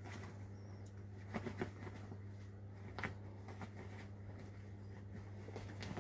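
A dog scuffling and pawing at play: scattered light taps and scuffles, a few of them sharper, over a steady low hum.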